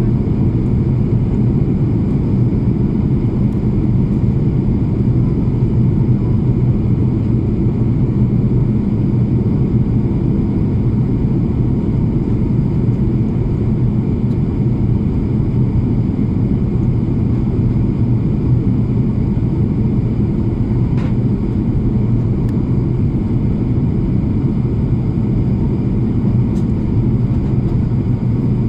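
Airplane in flight: a loud, steady low rumble of engines and airflow that does not change.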